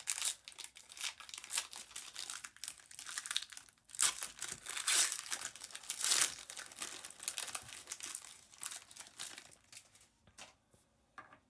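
A 2019 Panini Prizm foil card pack wrapper crinkling and tearing as it is opened and handled, with irregular rustling that dies away about ten seconds in.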